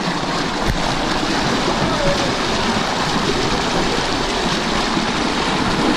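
Shallow river water rushing in a small cascade through a narrow gap between boulders, a loud steady noise. A single knock comes less than a second in.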